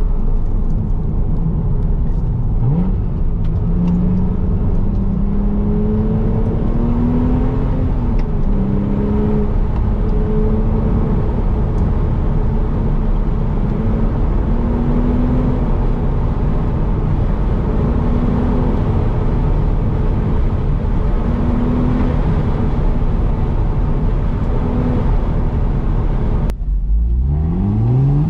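Car engine and tyre noise heard from inside the cabin, the engine note rising and falling with the throttle on a winding road. Near the end the engine drops off for a moment, then climbs quickly in pitch as the car accelerates hard.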